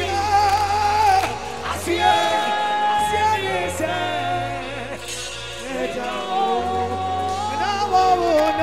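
Live gospel worship music: a woman singing long, wavering held notes into a handheld microphone over a live band with keyboards and a steady bass.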